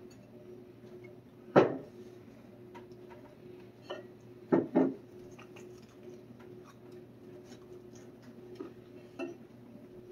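Knocks and clinks of a small hot-sauce bottle and sauced chicken wings handled against plates on a table. The loudest knock comes about one and a half seconds in, then a quick double knock a few seconds later, over a faint steady hum.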